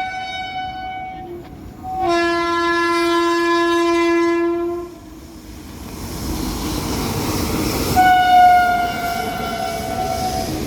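WAP7 electric locomotive's horn sounding repeatedly. A higher blast ends about a second in, then a longer, lower blast follows, then the higher tone comes again about 8 seconds in. Between the blasts the rumble and rail clatter of the passing train build up.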